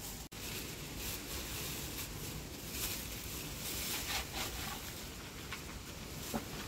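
Clear plastic bag crinkling in short bursts as a hand rummages inside it, over a steady low outdoor rumble.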